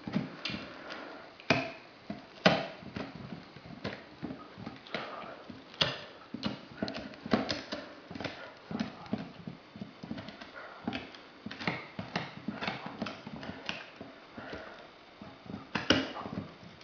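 Greater Swiss Mountain Dog gnawing on a large rawhide bone: an irregular run of crunching clicks and knocks from teeth and jaws, with a few louder snaps.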